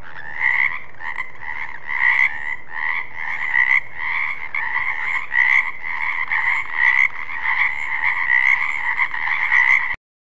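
Frog croaking: a quick run of repeated croaks, about three a second, that cuts off suddenly near the end.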